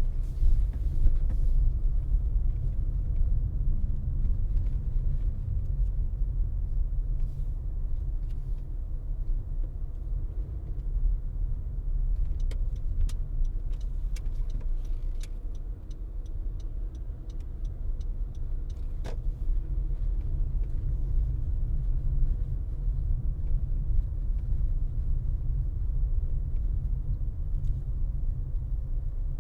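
A car driving, with steady low road and engine rumble. A little before halfway there is a run of light, evenly spaced ticks lasting a few seconds.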